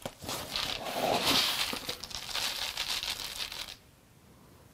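Dry rolled oats rustling as a measuring cup is dug into a canister of oats and scooped out. The sound comes in two swells and stops about four seconds in.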